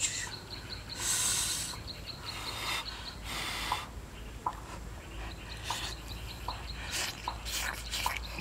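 A man eating with chopsticks: chewing and mouth sounds, with short hissy breaths a few seconds apart. Under it, a faint high ticking repeats a few times a second, likely insects.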